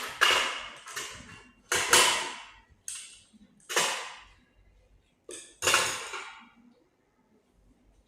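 Rustling, crinkling handling noise in about six short bursts, each starting sharply and fading within a second; the bursts stop about two-thirds of the way in.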